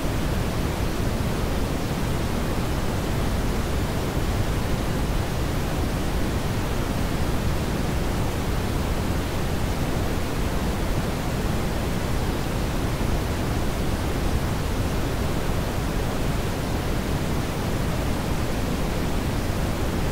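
Brown noise: a steady, featureless rushing hiss weighted toward the low end, with little high treble.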